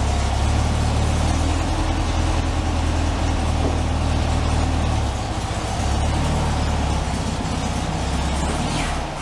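1964 VW Beetle's air-cooled 1500cc flat-four engine running steadily, a fresh engine that runs really, really nice. It eases off briefly about halfway through, then cuts off right at the end.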